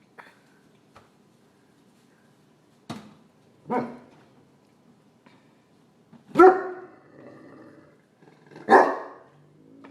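A dog barking three times, a couple of seconds apart, after a few faint knocks.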